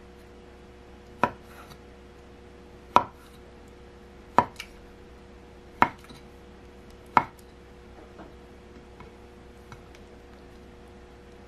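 Kitchen knife slicing through a block of konnyaku and knocking down onto a wooden cutting board: five separate sharp chops about a second and a half apart, then a few faint ticks near the end.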